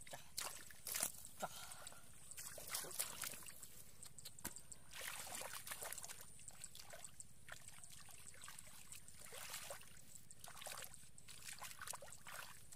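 Hands splashing and squelching in a shallow muddy puddle while groping through the mud for fish: irregular small splashes and sloshes.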